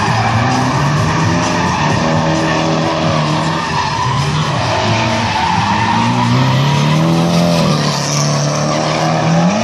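Two drift cars tandem drifting, engines revving hard with the pitch rising and falling as the drivers work the throttle, over continuous tyre screech as the tyres slide.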